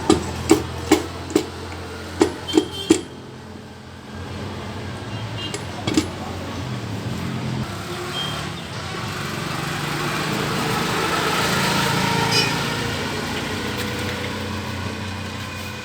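A few sharp metal clinks in the first three seconds, then a passing motor vehicle's engine that swells to its loudest about twelve seconds in and slowly fades.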